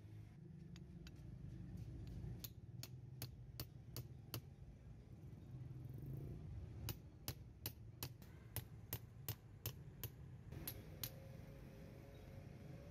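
Hammer tapping a chisel to cut the old copper windings off a fan motor's stator: a run of sharp metallic taps, about three a second, with a pause of a second or so midway, over a low steady rumble.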